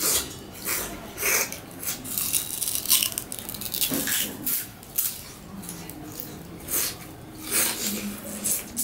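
Raw sugarcane being bitten and chewed close to the microphone: a crunch of the hard, fibrous cane about every half second to second, with the rind torn off by teeth.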